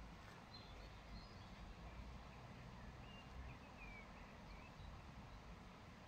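Near silence: faint outdoor ambience with a low rumble and a few short, faint high bird chirps scattered through the first few seconds.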